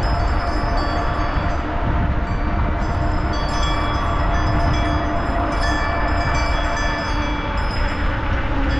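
Steady rumble and rattle of a bicycle rolling over pavement, with short metallic ringing tones coming and going at several pitches.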